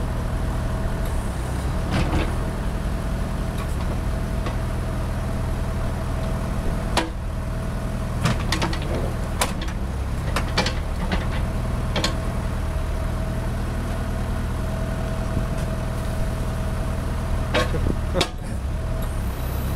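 JCB 1CX backhoe loader's Perkins 404D four-cylinder diesel engine running steadily while the backhoe arm is worked, with a steady whine over the engine. Sharp knocks and clanks from the arm and bucket come in a cluster in the middle and again near the end.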